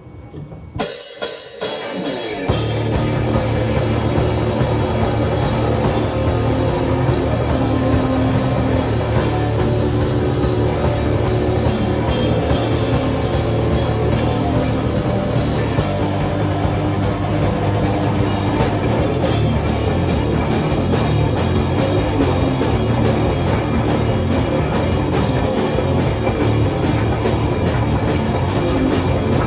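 Rock music with drum kit and guitar: a few separate drum hits, then the full band comes in about two seconds in and plays on steadily and loudly.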